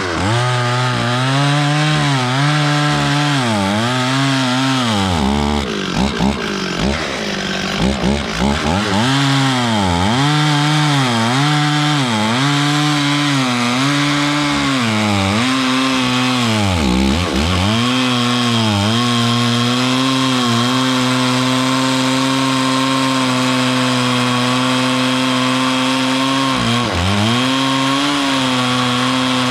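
Stihl 440 two-stroke chainsaw cutting through wood at full throttle, its engine note sagging and recovering about once a second as the chain bites. For the last ten seconds or so it holds a steady high pitch, with one brief dip near the end.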